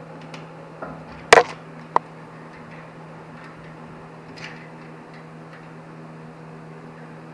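Hand tools and metal parts knocking during assembly of a funnel spreader: one loud clank a little over a second in, a sharp click half a second later, and a few light taps.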